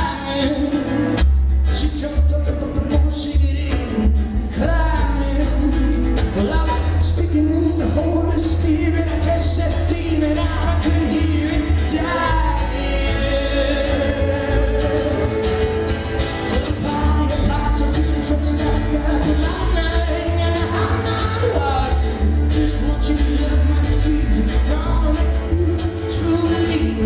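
Live acoustic band playing: fiddle over strummed acoustic guitar and upright bass, with a strong bass line.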